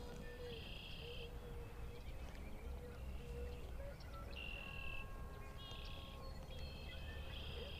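Songbirds singing: a run of short high phrases and trills, one after another, over a steady low rumble of outdoor background noise.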